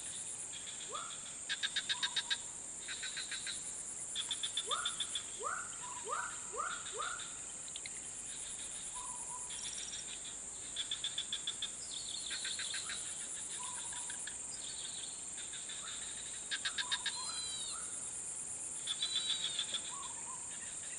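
Marsh wildlife chorus: a steady high insect hum, with repeated bursts of rapid pulsed chirping every second or two and a handful of short rising calls.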